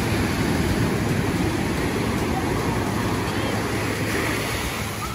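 Ocean surf breaking and washing up a sandy beach: a steady rush of waves, with a heavy low rumble.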